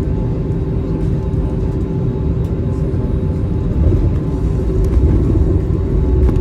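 Airliner engines and low rumble heard from inside the passenger cabin, a steady drone with a held hum, growing a little louder about four seconds in.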